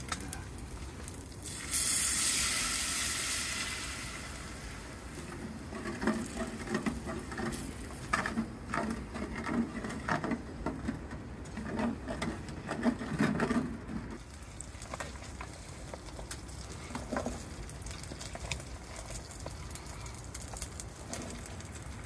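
Food sizzling as it hits a hot pan, starting suddenly about two seconds in and fading over the next few seconds, followed by scattered clicks and knocks of cookware being handled.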